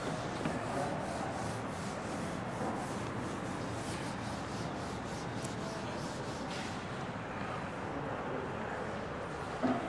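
Whiteboard duster rubbing back and forth across a whiteboard as writing is wiped off, in repeated strokes. The rubbing stops about two-thirds of the way through, leaving steady background noise.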